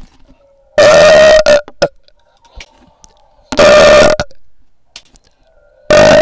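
A person burping three times in a row, loud enough to distort: each burp is a steady-pitched blare of under a second, and the third comes near the end.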